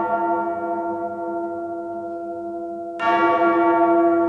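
A bell tolls twice, about three seconds apart: one toll is still ringing and fading at the start, and the next is struck about three seconds in. The tolls are part of the music soundtrack rather than a sound from the water.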